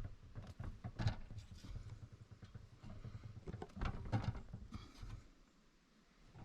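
Irregular light knocks, clicks and rustling handling sounds, quieter near the end.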